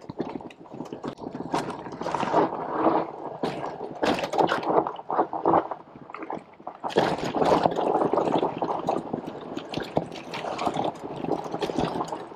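Full-suspension e-bike clattering over a rough dirt trail: tyres crunching and the bike rattling over bumps in a dense, irregular run of knocks, easing briefly about six seconds in before picking up again.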